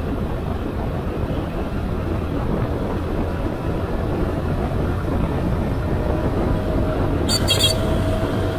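Motorcycle engine running with wind rush while riding, a steady low hum under a haze of noise. Two short sharp clicks come close together near the end.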